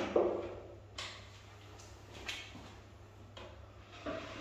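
A few separate light knocks and clunks of wooden furniture panels being handled and fitted together.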